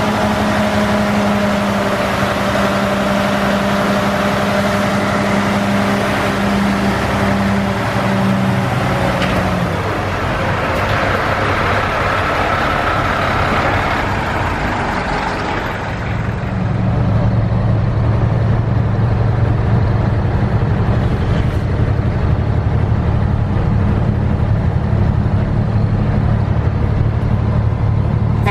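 Diesel engine of a 1982 Mack R-Series tipper truck running steadily with an even tone for the first half. From about halfway on it is heard from inside the cab while the truck drives, louder and deeper.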